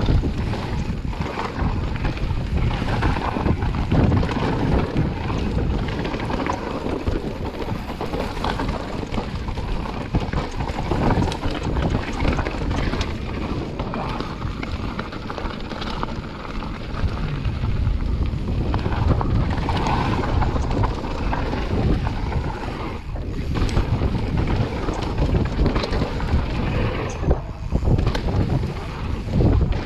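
Mountain bike descending a dirt trail: tyres running over the ground and the bike rattling and knocking over bumps, with wind buffeting the microphone.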